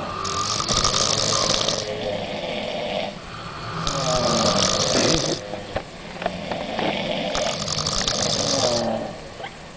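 Several sleeping young women snoring in loud cycles about every three and a half seconds: a pitched snore alternating with a hissing breath, three times over.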